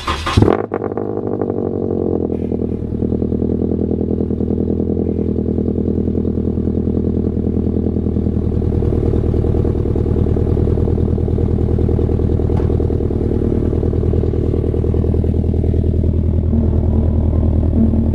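Scion FR-S's 2.0-litre flat-four boxer engine firing up with a brief flare about half a second in, then idling steadily through the exhaust.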